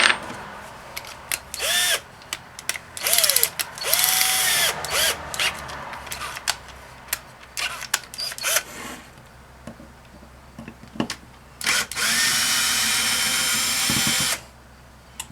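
Cordless drill driving screws out of a pump housing: several short trigger pulls, each rising and falling in pitch, then one steady run of about two and a half seconds near the end.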